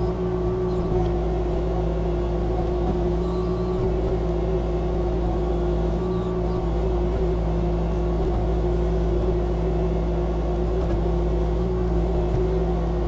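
Excavator engine running steadily, a constant low drone with a steady higher hum over it.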